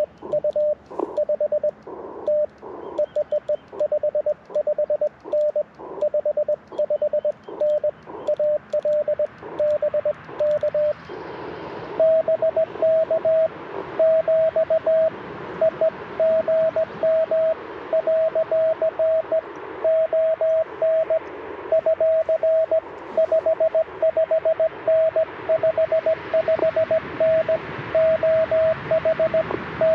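Morse code (CW) beeping from an Icom IC-705 ham radio transceiver: a single steady mid-pitched tone keyed on and off in dots and dashes over a hiss of band noise. About 11 seconds in, the tone steps slightly higher and the hiss grows louder.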